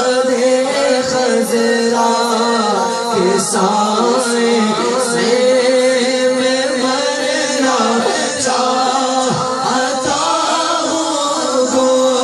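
Male voice singing an Urdu naat in long, drawn-out melodic notes over a steady held drone.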